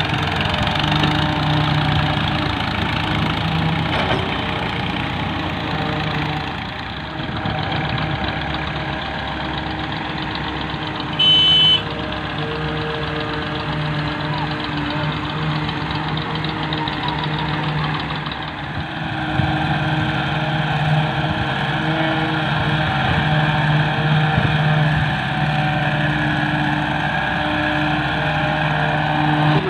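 Diesel engines of farm tractors and an excavator running steadily at idle, a low even hum. A brief high beep sounds once about eleven seconds in.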